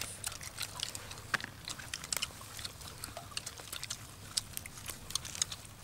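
Irregular crisp crunches and clicks of people eating crispy fried chicken legs wrapped in fresh lettuce leaves.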